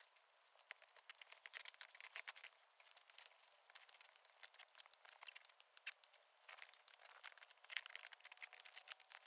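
Indian star tortoises biting and tearing chopped lettuce leaves: a faint, irregular run of crisp crunching and crinkling clicks.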